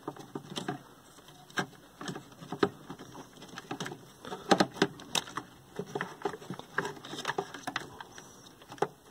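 Wiring and a flat ribbon cable being pushed and tucked into place against the circuit boards inside a Sony Trinitron KV-1942R chassis: irregular light clicks, taps and rustles.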